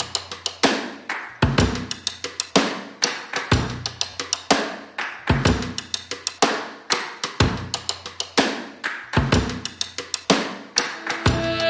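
Background music: a drum kit playing a steady beat, kick and snare hits, with no singing.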